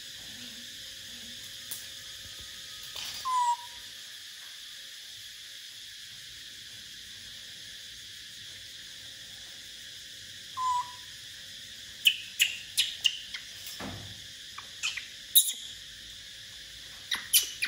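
Baby macaque giving two short, slightly falling squeaky calls several seconds apart, then a quick run of sharp clicks and knocks as it handles the wire bars of its cage.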